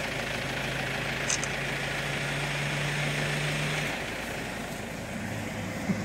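A vehicle engine idling with a steady low hum that drops in pitch about four seconds in, over a steady background hiss.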